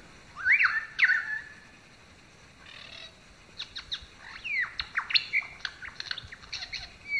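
Birds calling: short whistled chirps that sweep up and down in pitch. Two loud calls come about half a second and a second in, and a quick run of shorter calls follows from about three and a half seconds on.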